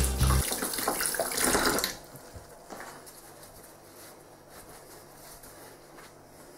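Kitchen tap running into a stainless steel sink while hands are rinsed under it; the water stops abruptly about two seconds in. After that comes faint rustling of a cloth tea towel as the hands are dried.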